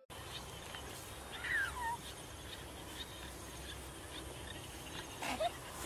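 Open-air rural ambience with low wind rumble on the microphone, faint high chirps about twice a second, and a short falling animal call about one and a half seconds in, with another brief call near the end.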